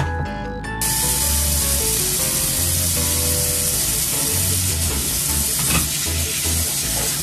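Kitchen tap running in a steady hiss, coming on about a second in, its stream splashing over cat water-fountain parts being rinsed and scrubbed by hand in the sink.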